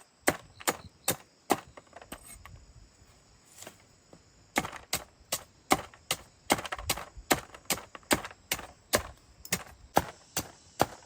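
Rhythmic chopping, a blade striking into wood at about two to three strokes a second. After four strokes it stops for about three seconds, then starts again and keeps an even pace.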